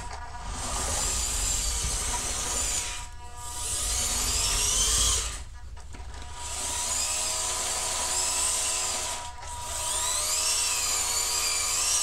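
Small electric drive motors and plastic gearing of an RC-converted 1/16 Bruder Cat compactor whining in four bursts, the pitch rising and falling as the throttle is worked.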